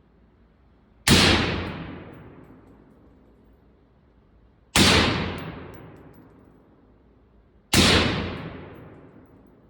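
Three rifle shots from an AR-15 chambered in 6.5 Grendel, about three to three and a half seconds apart, each fading away over a second or so. They are sight-in shots fired to check the scope adjustment.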